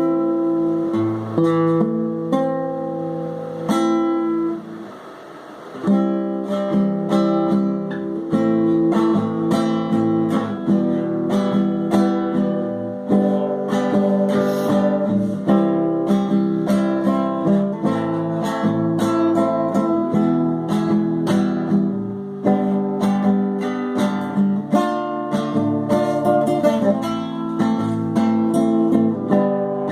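Acoustic guitar playing, strummed and plucked chords with no singing. The playing dies away briefly about five seconds in, then comes back in with a firm strum and carries on steadily.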